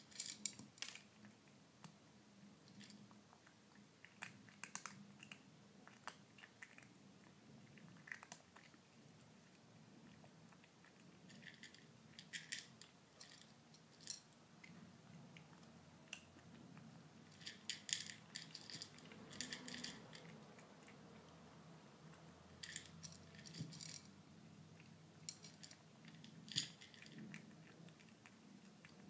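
Kitten crunching dry kibble from a bowl: faint, irregular clusters of short crunches and clicks with pauses between them.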